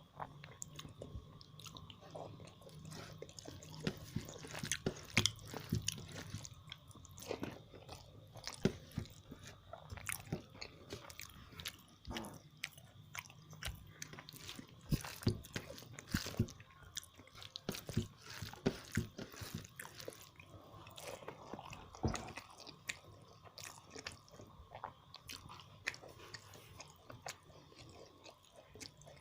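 Close-up chewing and eating of a rice-and-curry meal: a dense, irregular run of wet mouth smacks and clicks.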